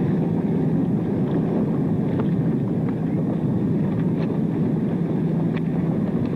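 Motorboat engine running steadily with a low, even drone, overlaid with scattered clicks of old film-soundtrack crackle.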